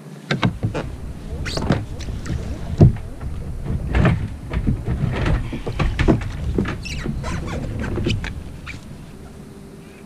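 Knocks, thumps and scraping against a plastic fishing kayak as a gaff is taken up and handled, with a halibut at the side, over a low rumble of handling noise. The sharpest knock comes about three seconds in.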